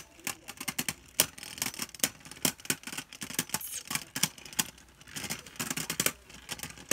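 Two Beyblade Burst spinning tops, the left-spin Balkesh and a Valkyrie, battling in a plastic stadium: a rapid, irregular clatter of sharp clicks and knocks as they collide and scrape.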